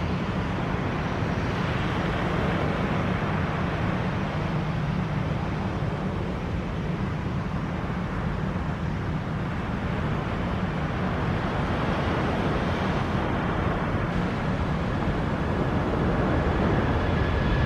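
Airbus A330 twin-jet airliner's engines at takeoff thrust during its takeoff roll: a steady deep rumble with a rushing hiss above it, growing louder near the end as the aircraft approaches and rotates.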